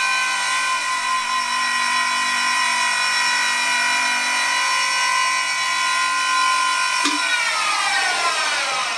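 Deckel G1L pantograph engraving machine's spindle running with a steady whine while a 2 mm carbide end mill takes a very shallow pass in steel. About seven seconds in there is a click, and the spindle winds down, its pitch falling.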